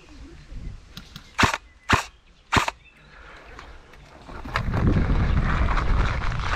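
Three sharp single airsoft gun shots about half a second apart. About four and a half seconds in, a loud steady rumbling rustle against the microphone begins.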